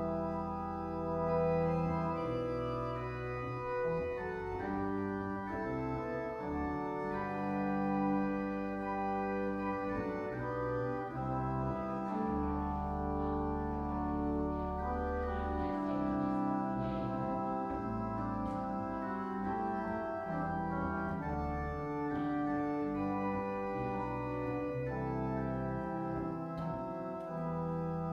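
Organ music playing slow, held chords over sustained deep bass notes, the chords changing every second or two.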